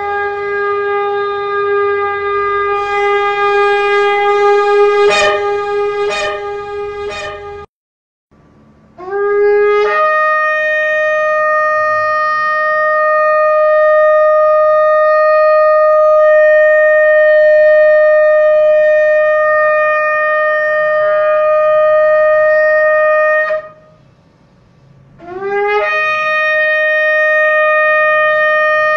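Shofar blown in long held blasts. The first blast ends about eight seconds in after a few quick breaks in the tone. After a short gap comes a blast that scoops up into a higher note and holds it for about fourteen seconds, and near the end another blast scoops up the same way and holds.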